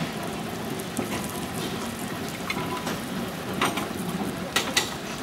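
Steady hiss of light rain on a wet street, with two sharp knocks close together near the end.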